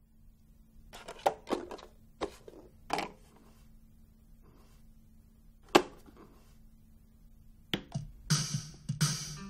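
A few scattered clicks and knocks, the loudest a single sharp click about halfway through. Near the end a click as a button is pressed on a Sony CD clock radio, and guitar music starts straight after.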